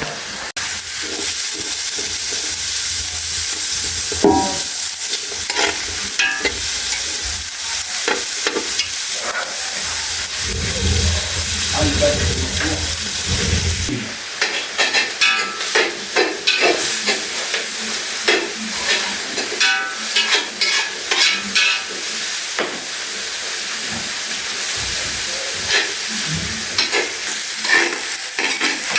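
Cooking sounds: a steady sizzling hiss with metal utensils clinking and scraping against a pot many times. A low hum runs underneath and stops about halfway through.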